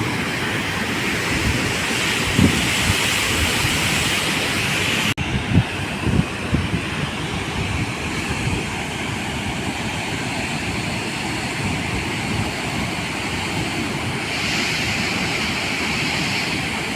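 Steady roar of water rushing out through the open gates of a dam, with gusts of wind buffeting the microphone. The sound breaks off for an instant about five seconds in and then carries on.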